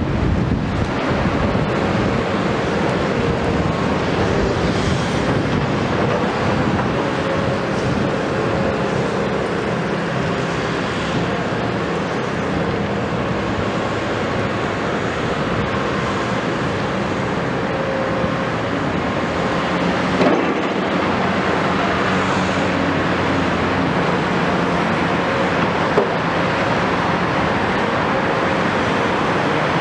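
Diesel engines of a Caterpillar 329E and a Hitachi Zaxis 250LCN crawler excavator running steadily under load, with gravel being scooped and poured from their buckets. A sharp knock sounds about twenty seconds in and another about six seconds later.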